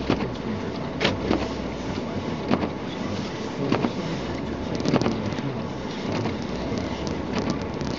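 Car cabin noise while driving on a snowy road: a steady rumble and hiss from the road and engine, with a knock from the windshield wipers every second or two.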